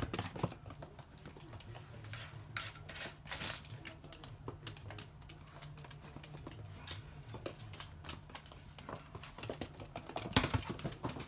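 Toy poodles' claws clicking and scrabbling in irregular clusters on a hard floor as the dogs move about, with the loudest flurry about ten seconds in, over a faint steady low hum.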